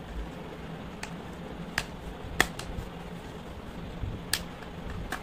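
A handful of sharp clicks, about five, from the plastic handle and cover of a Philips clothes iron being pressed and seated back onto the iron's body. The loudest comes about two and a half seconds in.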